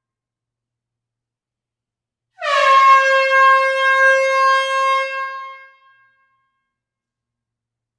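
Air horn sounding one blast of about three seconds in an enclosed hall, starting about two and a half seconds in. It is a single steady tone that dips slightly in pitch at the start, then dies away.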